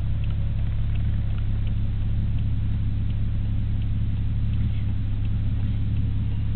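Drift car with an HKS GD Max twin-plate clutch, heard from inside the cabin: the engine runs at a steady, even pitch as a low drone, with faint light ticks scattered over it.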